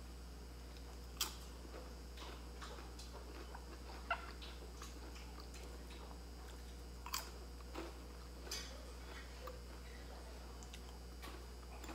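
Crispy fried bánh being eaten: a few separate sharp crunches and clicks, spaced a second or more apart, from bites and from fingers picking pieces off a glass plate, over a steady low hum.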